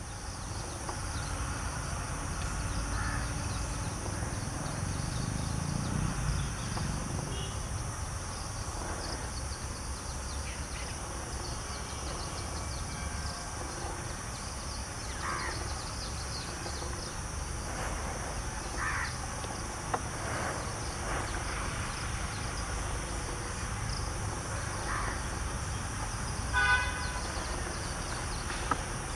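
Outdoor woodland ambience: a steady high insect drone over a low rumble, with scattered short, faint bird calls and one louder, short pitched call near the end.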